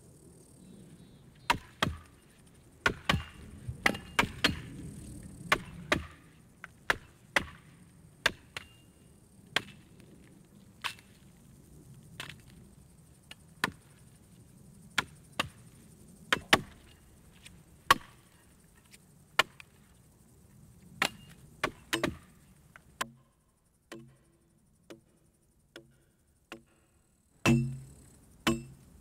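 Axes chopping into wood as a felled tree is limbed: sharp, irregular strokes about one or two a second, thinning out after about 23 seconds. Near the end come a few heavier, deeper blows.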